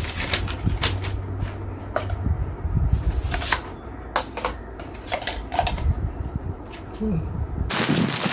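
Gaming-chair parts being handled during assembly: scattered sharp clicks and knocks as the plastic cover is fitted over the gas-lift cylinder. A plastic bag crinkles loudly near the end.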